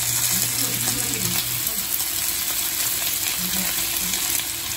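Meat sizzling steadily on a hot tabletop grill pan.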